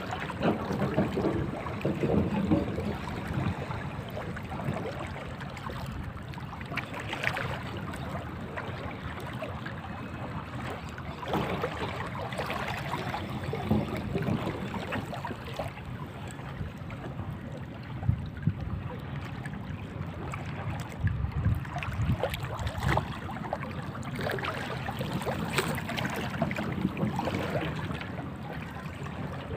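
Wind buffeting the microphone over the wash of sea water, with scattered small knocks and clicks.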